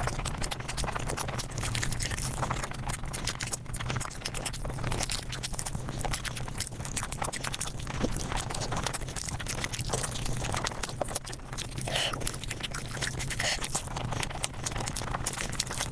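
Close-miked eating sounds sped up five times, so that chewing and crunching run together into a rapid, continuous clatter of clicks.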